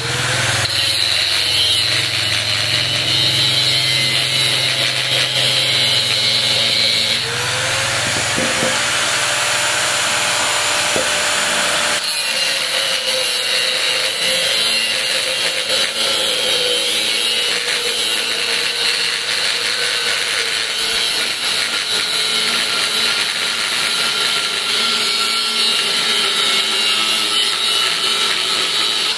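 Handheld angle grinder with a cutting disc cutting through the steel shell of an inverter air-conditioner compressor: a continuous harsh grinding with a steady high whine. The tone shifts a couple of times, about seven and twelve seconds in.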